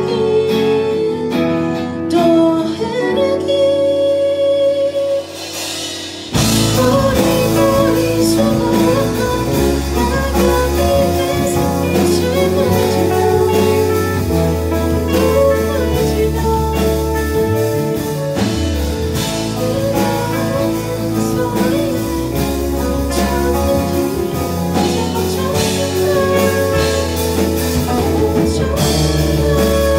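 Live band with a woman singing over electric and acoustic guitars and keyboard. The opening seconds are sparser, then the full band comes in with a strong low end about six seconds in.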